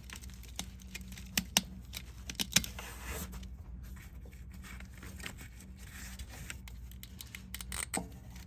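A glow plug's wire connector being worked loose and unplugged by hand: a few sharp clicks with light scraping and rustling in between.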